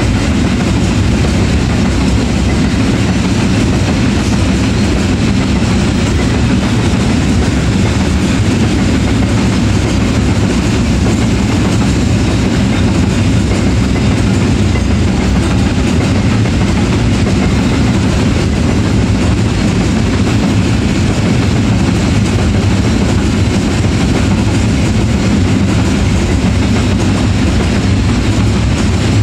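Freight train of empty flat wagons rolling past behind a diesel locomotive: a loud, steady rumble of wheels on rail, unchanging throughout.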